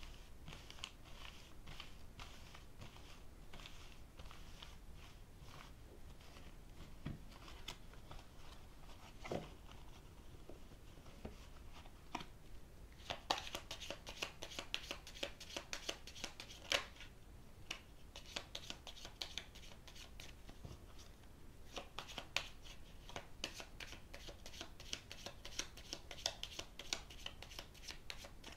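Tarot cards being shuffled: first soft sliding and rubbing as the deck is swirled face-down on a table mat, then, about halfway through, quicker runs of crisp card clicks as the deck is shuffled between the hands.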